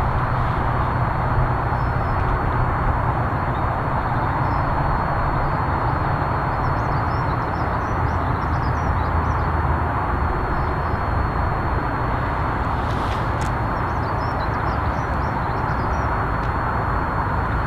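Steam locomotive 34067 Tangmere, an unrebuilt Bulleid Battle of Britain class light pacific, working hard as it approaches: a steady rushing roar with no separate beats, with birds chirping faintly now and then.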